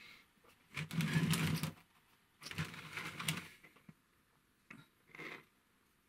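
A large stiff paintbrush dry brushing over a model's sanded, textured surface: two fast scratchy scrubbing bursts of about a second each, then two short brush strokes near the end.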